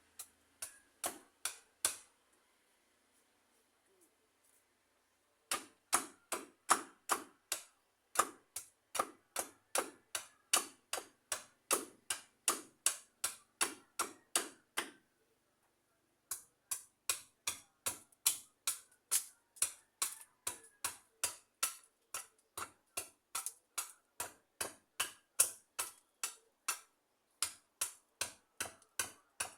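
Rhythmic sharp knocks, about three a second, in long runs that stop after a couple of seconds and again about halfway through before starting up again.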